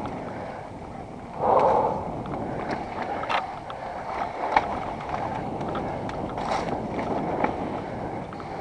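Mountain bike descending a dirt trail at speed: a steady rush of wind on the helmet camera's microphone and tyres on dirt, with scattered knocks and rattles from the bike over bumps, and a louder surge of noise about a second and a half in.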